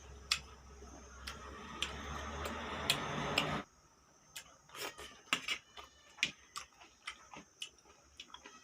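Close-up eating sounds: wet mouth clicks and smacks of someone chewing pork salad, at an irregular pace. For the first three and a half seconds a rising hiss runs under the clicks, then it cuts off suddenly.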